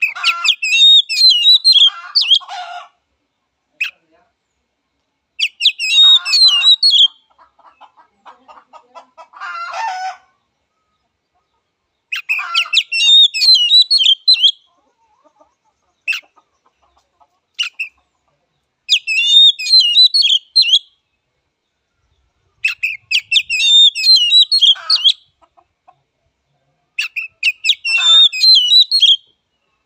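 Oriental magpie-robin singing: loud bursts of rapid, varied whistled and chattering phrases, each two to three seconds long, coming again every few seconds, some ending in lower, harsher rasping notes.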